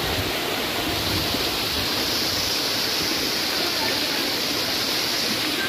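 Small waterfall spilling down a rock face: a steady rush and hiss of falling water.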